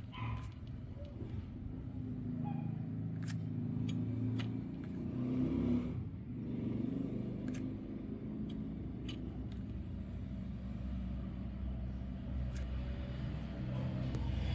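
Vehicle engine running, its pitch rising and falling as it is revved, with a few sharp clicks scattered through.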